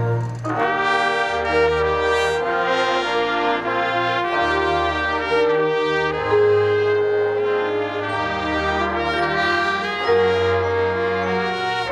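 Marching band brass section playing sustained chords, coming in about half a second in, with the low brass changing notes beneath every second or two.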